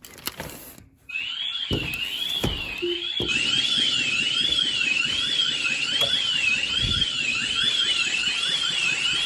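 Ring Alarm security system siren going off, tripped by a window contact sensor opening while the system is armed in Home mode. It is a loud warbling tone sweeping up and down about one and a half times a second, starting about a second in, with a harsher second layer joining about three seconds in. A few knocks come from the window being handled.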